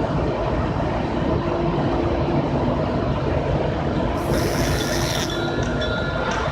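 Sawdust charcoal making machine running: a steady, loud mechanical rumble with a faint hum. About four seconds in, a harsh high-pitched noise joins for about a second.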